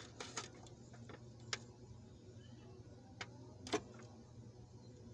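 A few light clinks and taps of an open sardine can against a bowl as the sardines in sauce are emptied into it. The taps come at uneven intervals, the loudest a little before the end.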